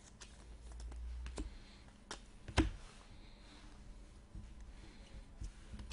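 Trading cards being handled and flipped through by hand: scattered light clicks and taps of card edges, with one sharper tap about two and a half seconds in.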